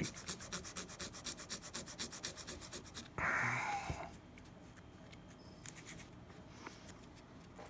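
220-grit sandpaper rubbed back and forth by hand over the acrylic bite-plate repair on a metal saxophone mouthpiece, coarse shaping and finishing the repair flush. Quick, even strokes about six a second stop after about three seconds; a short louder rustle follows, then only a few faint strokes.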